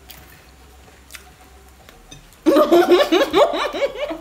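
Loud laughter, a quick run of ha-ha pulses, starts about two and a half seconds in after a quiet stretch with a few faint clicks.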